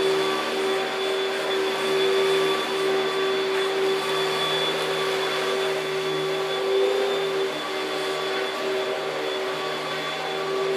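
Panasonic Jet-Flo MC-6217 upright vacuum cleaner running steadily, its motor giving a constant hum with a high whine over it.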